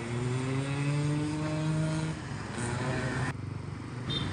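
Yamaha RX Cobra two-stroke single-cylinder motorcycle engine being revved: its pitch rises for about two seconds, falls back, then comes a shorter blip. The sound drops off abruptly a little after three seconds in.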